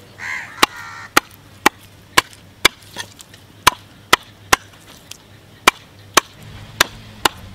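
A butcher knife chopping shark meat on a wooden log chopping block: a steady series of sharp knocks, about two a second.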